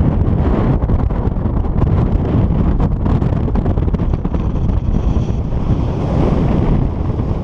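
Wind noise from the airflow of paragliding flight buffeting the camera microphone: a steady, loud low rumble.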